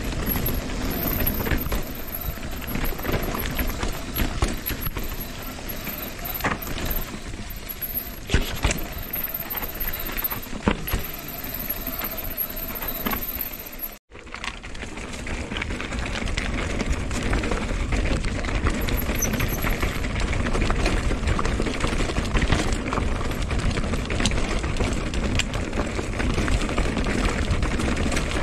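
Mountain bike rolling down a rocky trail: tyres crunching and rattling over stones, with scattered sharp knocks from the bike, and a heavy low rumble of air and ground noise. The sound cuts out for an instant about halfway through.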